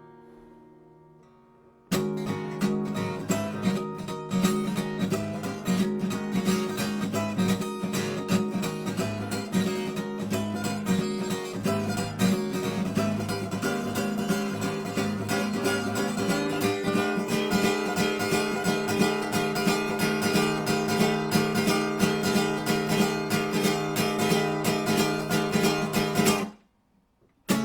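Acoustic guitar playing an instrumental break in a song, a quick run of picked notes mixed with strums. A fading chord gives way to a brief pause, then the playing starts about two seconds in and cuts off abruptly about a second before the end.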